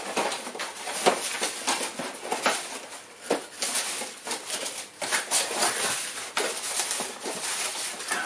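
Packing paper crinkling and cardboard packaging rustling and scraping as it is rummaged through and lifted out of a box, in quick, irregular rustles.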